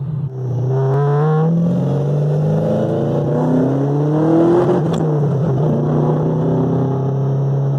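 Ferrari Dino 308 GT4's V8, with its near-straight-through Challenge exhaust, heard from the cabin as the car pulls away. The revs climb, drop at an upshift about two seconds in, climb again more slowly, and drop at a second shift about five seconds in, after which the engine settles into a steady cruise.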